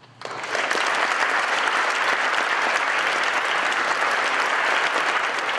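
Audience applauding: a dense, steady round of clapping that starts about a quarter second in and swells to full strength within half a second.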